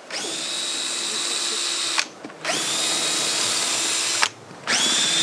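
Cordless drill running in three bursts of about two seconds each, every burst quickly rising in pitch to a steady whine and stopping with a sharp click.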